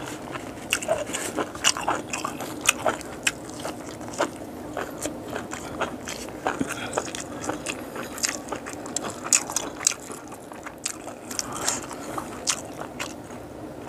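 Close-miked chewing of boiled frog, with many irregular crisp crunches and clicks as the small bones are bitten through.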